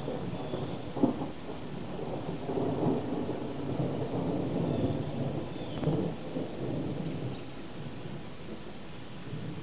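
Rolling thunder rumbling low, swelling a couple of seconds in and dying away near the end, with a sharper crack about a second in, over a steady hiss.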